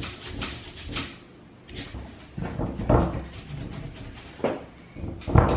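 A suede brush scrubbing the suede rim of a steering wheel in quick back-and-forth strokes, about four a second, early on, then a few dull knocks of the wheel being handled.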